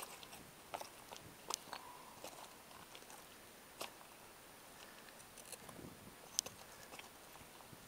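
Footsteps on a rocky trail of loose stones: faint, irregular clicks and crunches of stone underfoot, roughly one a second.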